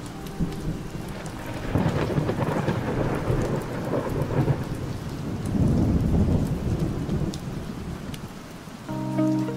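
Steady rain with thunder rumbling, swelling about two seconds in and again, louder, around six seconds.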